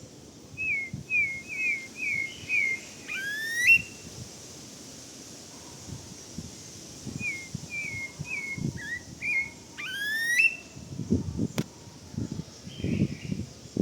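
Pale-breasted thrush (sabiá-do-barranco) singing two whistled phrases, each a run of about five short down-slurred notes followed by quick rising whistles. Low rumbling bumps on the microphone and a sharp click come near the end.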